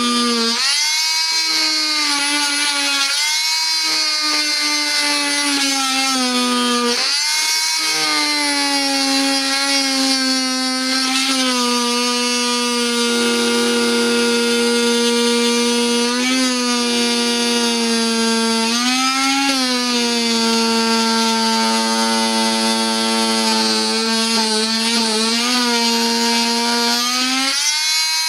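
250-watt 'The Renovator' oscillating multi-tool running with a round saw blade, cutting through a wooden board: a steady, loud buzzing whine whose pitch rises briefly several times as the load on the blade eases.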